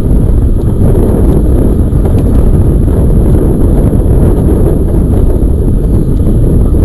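Wind buffeting the microphone of a camera riding on a moving electric bike: a loud, steady low rumble without a break.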